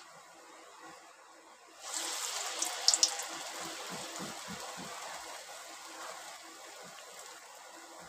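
Dal vada batter dropped into hot oil in a kadhai about two seconds in: the faint frying hiss suddenly jumps to a loud sizzle with a few sharp crackles, then slowly dies down as the fritters keep frying.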